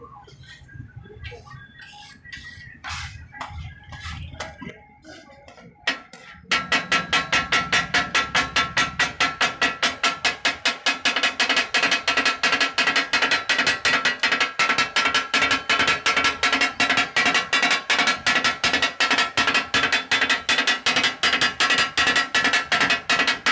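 Scattered knocks and clicks of metal spatulas on a large iron tawa over a low rumble for the first few seconds, then background music with a fast, even beat starts and takes over.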